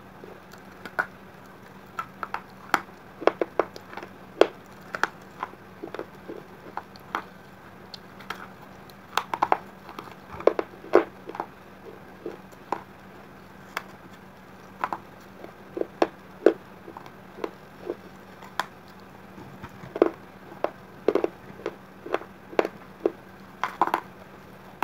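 Biting and chewing of fired clay diya pieces dipped in red clay paste: irregular sharp crunches, some in quick clusters with quieter gaps between.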